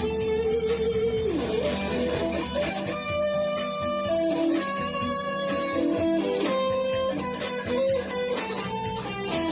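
Background music on electric guitar, with sustained notes and melody lines changing pitch.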